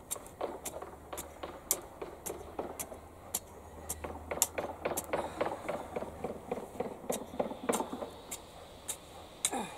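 Metal garden rake bashing and scraping dry, rough-dug soil to break up hardened clods: a run of sharp clicks and dull knocks, about two a second.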